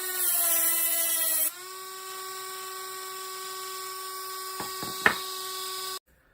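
Dremel rotary tool running with a steady high whine while grinding saw teeth into the tip of a flat screwdriver blade to make a checkering cutter. The grinding is louder for the first second and a half, then the tool runs lighter, with a couple of sharp clicks about five seconds in, and it cuts off suddenly near the end.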